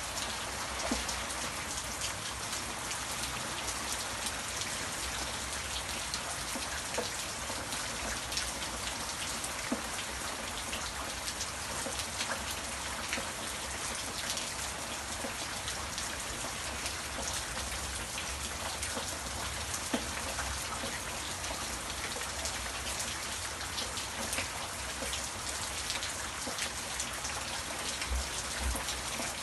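Steady rain falling, with many separate drops heard as sharp ticks on top of the even hiss.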